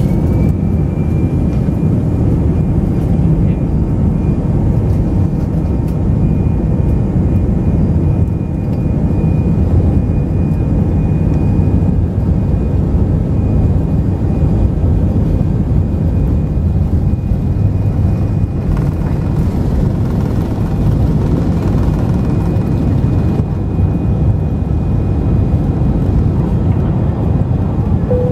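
Airbus A320 jet engines at takeoff power, heard inside the cabin over the wing: a loud, steady roar with a high engine whine that climbs just as the roll begins and then holds. The wheels rumble on the runway until the airliner lifts off partway through.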